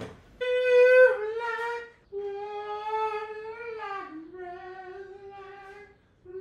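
A man's voice in long wordless held notes, sung or wailed: three drawn-out tones of about two seconds each, each bending slightly in pitch, with the second sliding down at its end, and a fourth beginning near the end.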